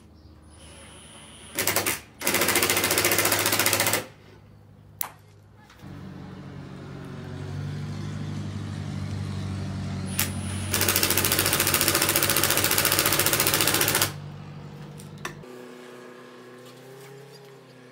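Cordless impact driver driving screws into the wall to fix a camera bracket. It hammers in two bursts of a couple of seconds each, about two and eleven seconds in, with a steadier motor whir between them.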